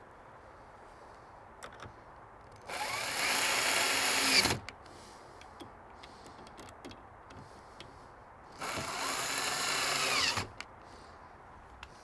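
Cordless drill-driver running twice, each run nearly two seconds long and a few seconds apart, driving the screws of a door strike plate; faint small clicks fall between the runs.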